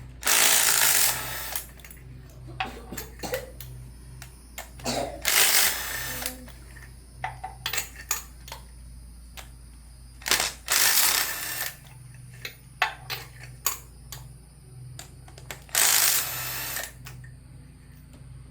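Four short bursts of hissing, about a second each, spaced a few seconds apart, with sharp metallic clicks and clatter of hand tools in between, over a steady low hum.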